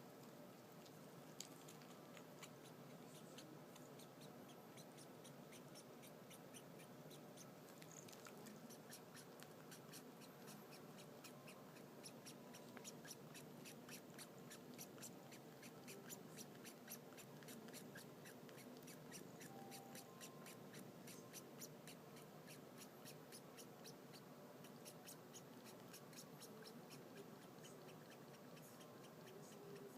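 A cat grooming another cat's fur with its tongue: faint, rhythmic licking strokes, about three to four a second.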